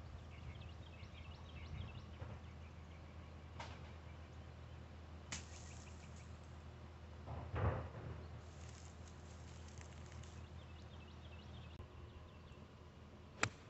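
Two golf club strikes on the ball, each a sharp click: a wedge off leaf-covered ground about five seconds in, and a 7-iron off fairway grass near the end. A duller thump comes a couple of seconds after the first strike, with faint birdsong throughout.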